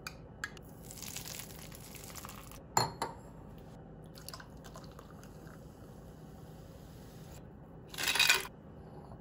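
Kitchen handling sounds: a spoon knocks against a plate a little under three seconds in, then near the end ice cubes tumble from a plastic scoop into a glass of cola with a short, loud burst of clinks.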